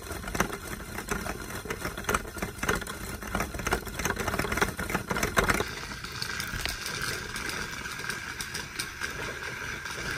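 Abu Garcia Revo Beast 40 baitcasting reel cranked quickly by its handle as braided line winds onto the spool, making a mechanical whir with dense, rapid clicking and rattling. About six seconds in, it settles into a smoother, steadier whir.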